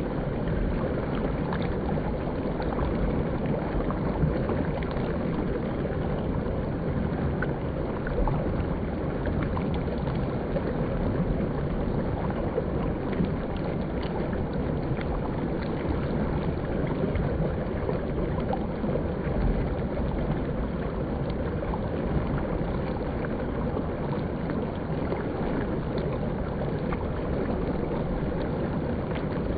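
River water flowing and rushing steadily, a continuous low rumbling wash with no break.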